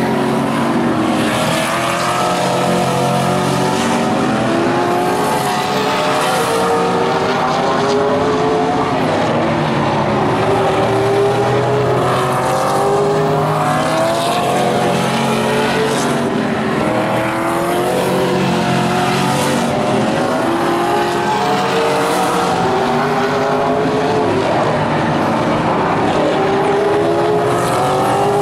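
Several vintage modified race cars racing together on a short oval track. Their engines run hard, with pitches rising and falling continuously as the cars lap, brake into the corners and accelerate out.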